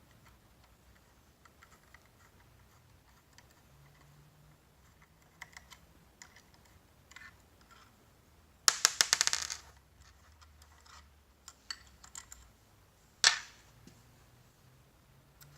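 Small metallic clicks and ticks of hand tools working bracket fasteners on an electric scooter. About nine seconds in comes a loud run of rapid metal clicks lasting about a second, and a single sharp metallic clack follows a little after thirteen seconds.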